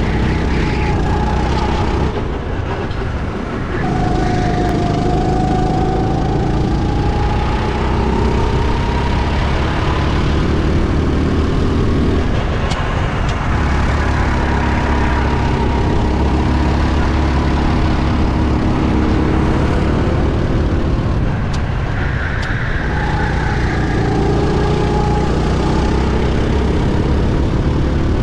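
Go-kart engine running hard, heard onboard. The revs drop about three seconds in and again past the twenty-second mark as the kart slows for corners, and climb steadily as it accelerates out of them, with wind rushing over the microphone.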